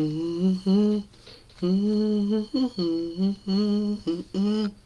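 A voice humming a slow gospel melody without words, in a string of held notes that stops just before the end.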